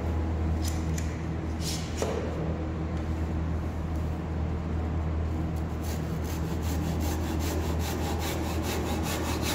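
A couple of sharp clicks as a quick-grip bar clamp is tightened. Then, from about six seconds in, a handsaw cuts a softwood block in rapid, even strokes, with a steady low hum underneath.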